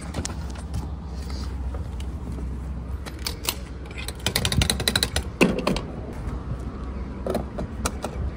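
Car being refuelled from a gas pump nozzle, with the nozzle and fuel filler being handled. A rapid run of mechanical clicks comes about four seconds in, then a single knock and a few more clicks near the end.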